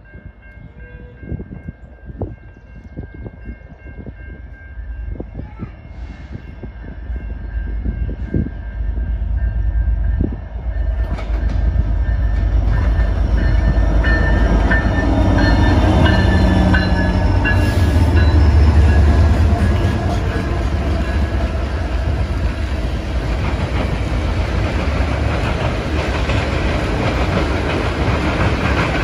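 Freight train of diesel locomotives and tank cars passing. A horn sounds at a distance at first while the locomotives approach. Their rumble grows louder and peaks about halfway through as they go by, and then the tank cars roll past with steady wheel-on-rail noise and clickety-clack.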